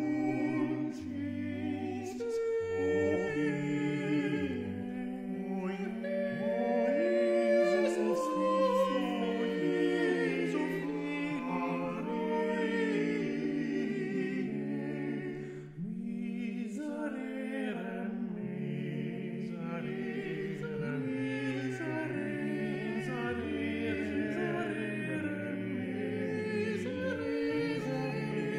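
A cappella vocal ensemble singing held chords in several-part harmony, with a short break about sixteen seconds in.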